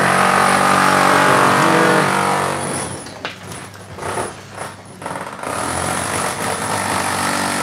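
A vehicle's engine running close by, loudest for the first two seconds or so, fading somewhat, then loud again for the last two seconds.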